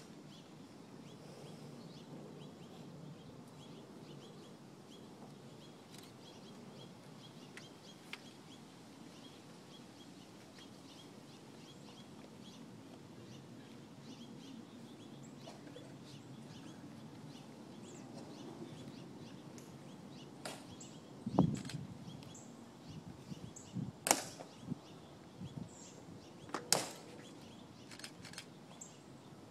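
Hushed outdoor crowd ambience with faint bird chirps. In the last third come several sharp clicks and snaps, the loudest about three-quarters through, from the honor guard sentinels' rifle handling and heel clicks during the guard change.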